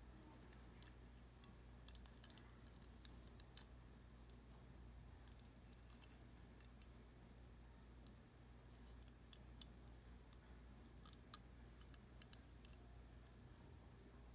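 Near silence over a low steady hum, with faint scattered clicks of fingers handling a small die-cast model van, in two short clusters.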